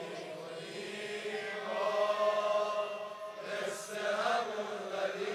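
A crowd of men softly chanting a Shia mourning refrain together, many voices in unison.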